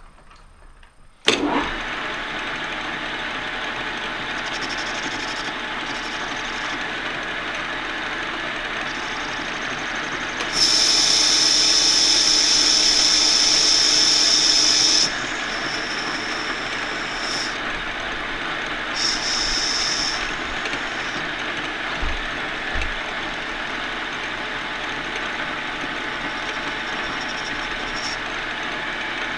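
Metal lathe switched on about a second in and running steadily, its collet chuck spinning a bronze bushing. From about ten seconds in a loud, steady high-pitched whine lasts some four seconds, with two shorter ones after it, as the high-speed tool bit cuts a step into the sintered bronze.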